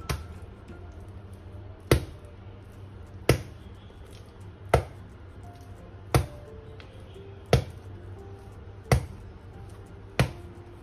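Bread dough for focaccia being slapped down onto a countertop by hand while kneading, eight sharp slaps about one every second and a half. Soft background music plays underneath.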